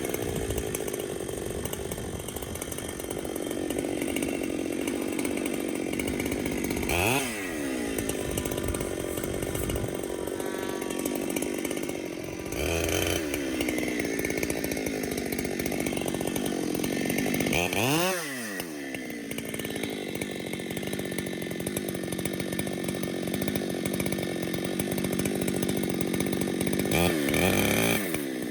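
Chainsaw running under load as it rip-cuts lengthwise along a log to make boards. The engine speed briefly drops and revs back up four times.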